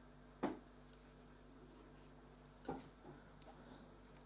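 A few soft, scattered clicks of metal double-pointed knitting needles knocking together as the knitting is handled, the clearest about half a second in and near the three-second mark.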